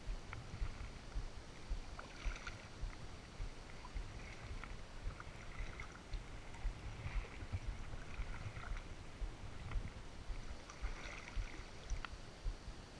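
Kayak paddle dipping into calm water in unhurried strokes, a soft splash every second or two, with a few light knocks and a low buffeting rumble on the microphone underneath.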